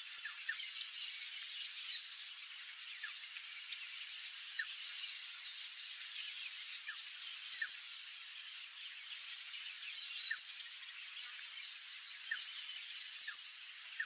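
Insect chorus: a steady high-pitched trill with a pulsing layer beneath it, and short chirps repeating every second or two.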